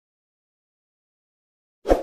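Silence, then near the end a short burst of an intro-animation sound effect, lasting about a third of a second.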